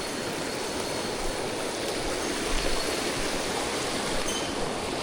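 Mountain stream rushing over rocks: a steady, even wash of moving water.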